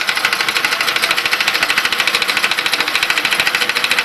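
A 2001 Mercury 10 hp two-stroke outboard motor running steadily, with an even, rapid pulsing exhaust beat.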